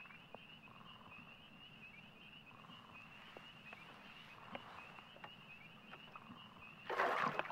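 A steady, high, pulsing trill runs throughout, with softer, lower trills coming and going beneath it. About seven seconds in, a loud splash: a released bass kicking away from the side of the boat.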